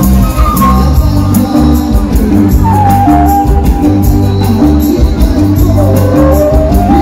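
Live band music with a steady beat: a male singer over violins, bass and percussion, with a held melody line moving in steps.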